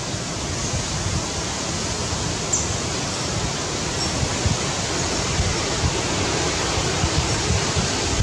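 Wind blowing across the microphone outdoors: a steady hiss with an uneven low rumble.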